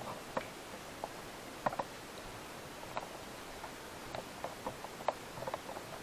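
Scattered, irregular light clicks and ticks over a steady hiss, about a dozen in six seconds, with no shots or voices standing out.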